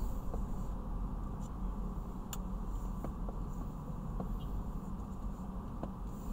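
Steady low rumble of engine and road noise heard inside a moving car's cabin, with a few faint light ticks; the sharpest comes a little over two seconds in.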